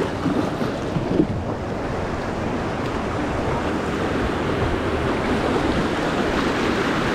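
Whitewater of the Ocoee River rushing steadily, with a single brief knock about a second in.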